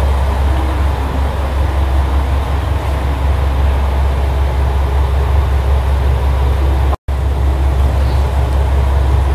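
KiHa 185 diesel railcar standing at the platform, its diesel engine idling with a steady low rumble. The sound breaks off for an instant about seven seconds in.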